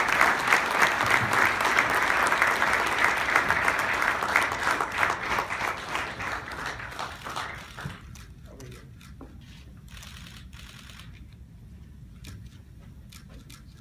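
Audience applauding, a dense spread of clapping that thins out and fades about seven to eight seconds in, leaving a few scattered clicks.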